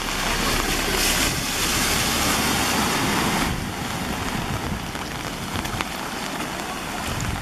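A pickup truck drives through deep floodwater, its engine running under the rush and splash of water thrown off its wheels. It is loudest for the first three seconds or so, then eases to a steady rush of water.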